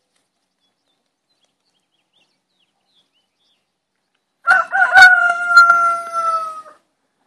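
Rooster crowing once after about four seconds of near silence: a single drawn-out crow of about two seconds that sags slightly in pitch at the end.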